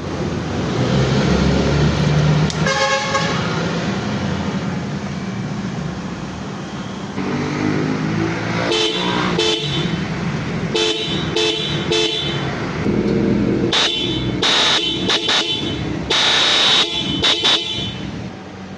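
Hella electric horn sounded in a series of short toots over a running engine: one blast near the start, then repeated quick beeps in the second half and a longer blast near the end.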